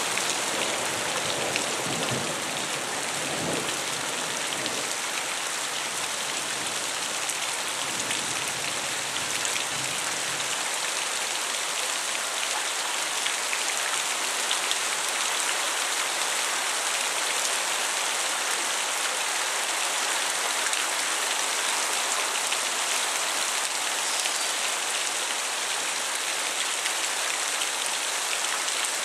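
Steady rain falling during a thunderstorm, with a low rumble of thunder in the first ten seconds or so that dies away.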